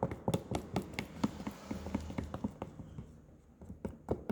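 Slime being stirred in a container as activator is worked into the glue. It makes a quick, irregular run of small clicks and taps that thins out and quietens about three seconds in.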